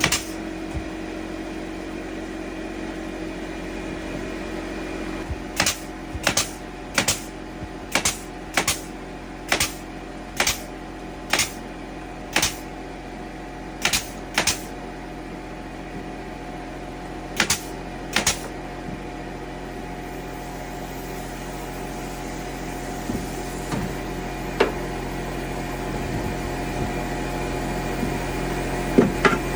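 Hammer blows, likely driving nails into wooden wall framing: a run of about nine sharp strikes roughly one a second, then two pairs of strikes and a last single one, over a steady hum.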